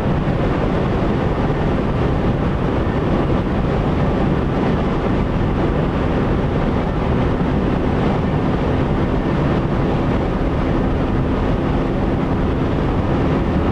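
Car driving through strong gusting crosswind: a loud, steady rush of wind and road noise heard from inside the car, with a faint steady low hum underneath.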